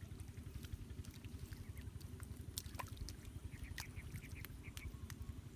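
Hands scooping and patting wet mud, with small wet clicks and slaps over a steady low rumble of wind on the microphone. Past the middle comes a quick run of short chirping calls from an animal.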